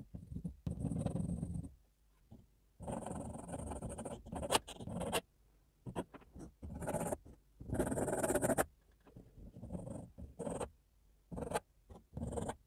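Mechanical pencil lead scratching across a textured drawing board in a series of strokes, some a second or two long, with short pauses between.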